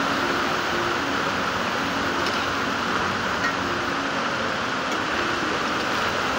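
Crab pieces frying in hot mustard oil in a kadhai, a steady sizzle: the crab is being half-fried.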